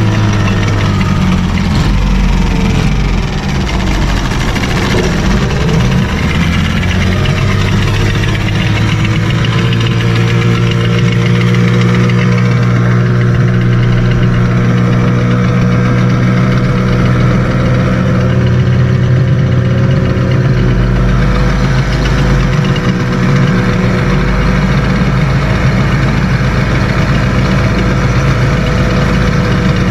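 Boat's outboard motor running steadily at speed, its pitch wavering during the first few seconds, then holding even.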